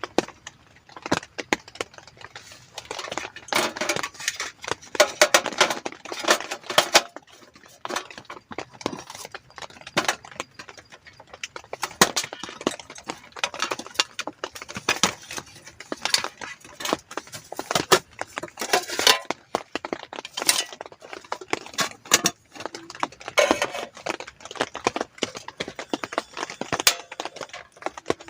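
Cookware and utensils being handled: irregular clinks and knocks of metal pots, lids and cutlery, in clusters with short pauses between.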